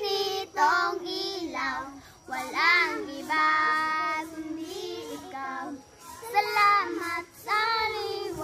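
Children singing a Christmas carol, with one long held note in the middle.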